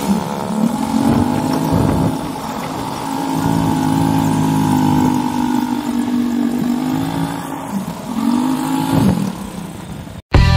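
Quad bike engine running and revving as it is ridden on sand, its pitch rising and falling with the throttle. It cuts off suddenly near the end.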